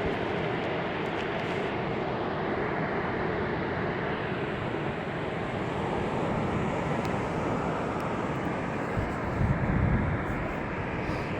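Sea surf washing onto a beach: a steady rush of waves, with a short low rumble about nine to ten seconds in.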